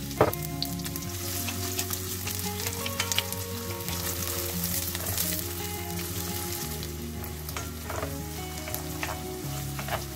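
Sliced onions sizzling steadily as they fry in oil in a stainless steel pan over medium heat, stirred with a wooden spoon that knocks against the pan a few times, most sharply just after the start.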